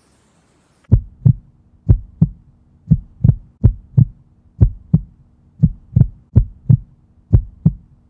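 Heartbeat sound effect: paired lub-dub thumps, a little under one pair a second, starting about a second in over a faint steady hum.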